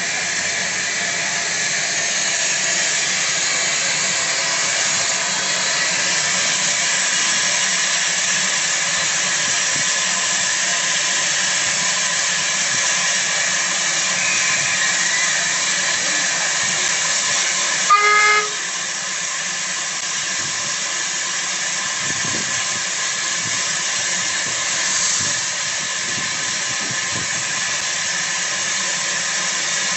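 Steady hiss of steam from a National Coal Board saddle-tank steam locomotive, with one short steam-whistle toot about eighteen seconds in.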